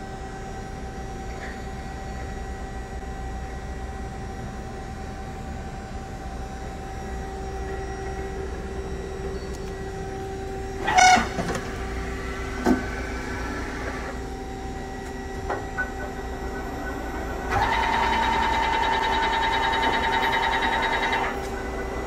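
Kingston LC38X160 CNC hollow-spindle flat-bed lathe powered up, with a steady electrical hum. A sharp clunk comes about halfway through, with a smaller knock just after. Then, for about four seconds near the end, a loud even whine as the carriage drive moves the carriage along the bed toward the chuck.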